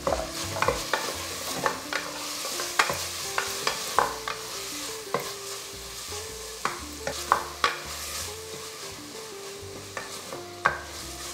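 Wooden spoon stirring and scraping onions, tomatoes and garlic frying in oil in a pressure cooker pot, a steady sizzle under irregular scrapes and knocks of the spoon against the pot.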